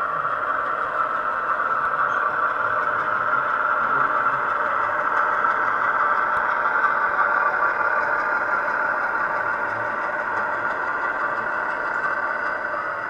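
7mm-scale model Class 08 diesel shunter moving slowly with a wagon, giving a steady diesel-engine drone that holds the same pitch throughout.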